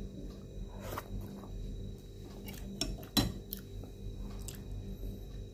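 A person eating rice with bare hands: chewing and mouth sounds with scattered small clicks and taps against a plate, the sharpest about three seconds in, over a faint steady hum.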